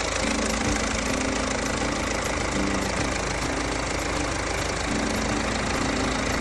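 Dry ice blaster's compressed-air jet hissing steadily, over the hum of a running engine.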